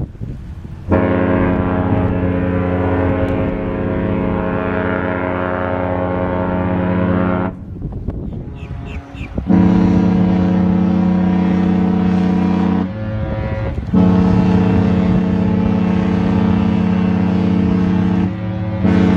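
Disney cruise ship's horn sounding long, deep, steady blasts. The first lasts about six seconds, and three more of three to four seconds each follow with short gaps between them. A lower tone carries on for about a second after the second blast.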